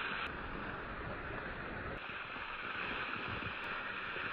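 Steady rushing noise, even throughout, with no distinct knocks or impacts.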